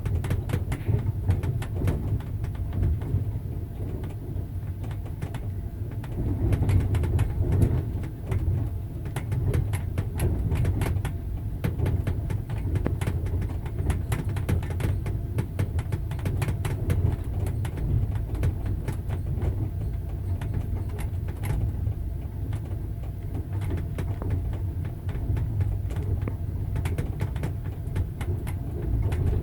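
Passenger train wheels clacking on the rails over a steady low rumble of the moving carriage, with many short sharp clicks throughout.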